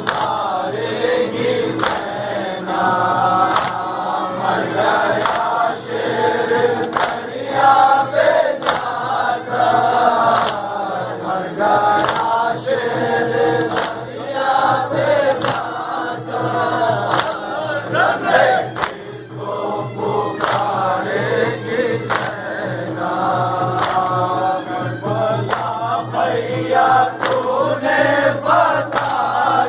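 A crowd of men chanting a Muharram mourning lament (noha) in unison, with sharp strokes of chest-beating (matam) falling about once a second.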